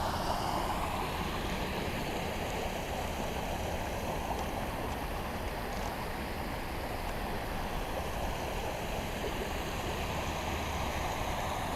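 Floodwater of the French Broad River, above flood stage, rushing steadily as it runs across a road.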